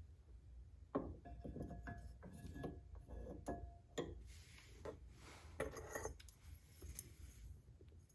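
Faint metal clinks and taps of brake pads being slotted one by one into a Project Mu big-brake caliper, with a brief light metallic ring about two seconds in.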